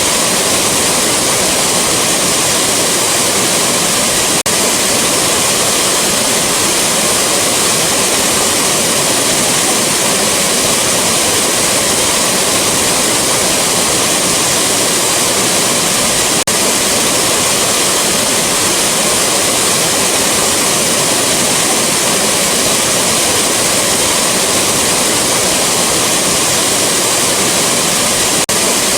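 A waterfall rushing: a steady, loud, unbroken roar of falling water, with two split-second dips about twelve seconds apart where the recording loops.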